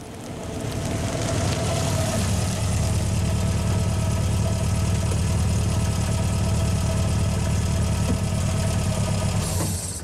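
Ford Anglia's four-cylinder engine idling at the kerb, a steady low rumble. It fades in over the first second and cuts off just before the end.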